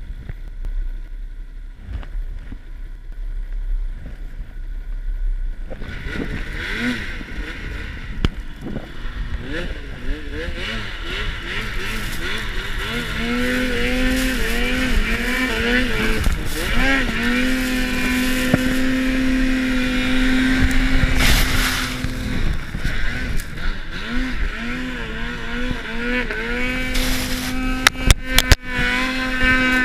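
Snowmobile's two-stroke twin engine is quiet at first. About six seconds in it starts revving up and down in repeated swoops, then is held at high revs with brief dips while the track churns deep snow: the sled is stuck and the rider is throttling to dig it out.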